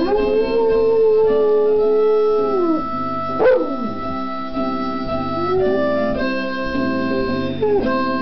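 Blues harmonica playing steady chords while a dog howls along: one long howl over the first three seconds that slides down at its end, then shorter swooping howls.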